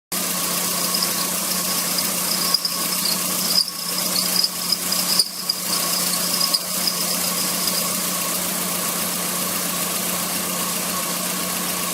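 Car engine running with its air-conditioning compressor giving a high squeal that comes and goes, cut by a few knocks during the first seven seconds, then settling into a steadier run. The noise is from a faulty AC compressor that needs to be removed and overhauled.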